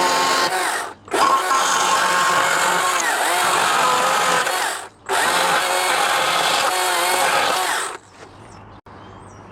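Chainsaw running under load as it carves wood, cutting out briefly twice and stopping about eight seconds in. After it stops, faint bird chirps are heard over a low hum.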